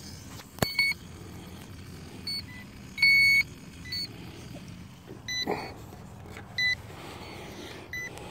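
Hubsan H109S quadcopter system powering up after its battery is plugged back in: a sharp click less than a second in, then a string of short high electronic beeps, one longer and loudest about three seconds in.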